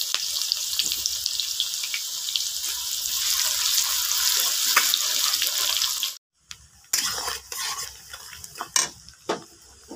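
Sliced onions sizzling hard in hot mustard oil in a pan, stirred with a metal spatula. About six seconds in the sound cuts off, then comes back as a quieter sizzle with a few sharp spatula scrapes and knocks.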